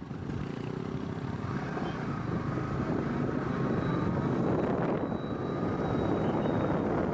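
Motorcycle engine running steadily while riding, its pitch shifting a little, mixed with wind rushing over the microphone.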